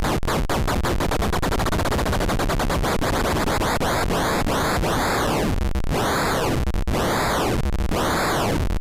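Digital noise from a Eurorack noise module, its clock rate (timbre) swept by an external control voltage. It starts as a rapid stream of clicks whose rate climbs. From about halfway it becomes a noise sweeping up and down in tone roughly once a second.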